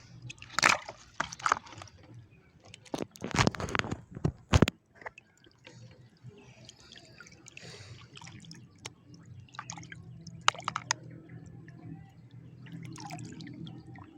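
Water splashing and dripping as a hooked tilapia is pulled in through shallow water: a run of sharp splashes over the first five seconds, then fainter drips and small clicks.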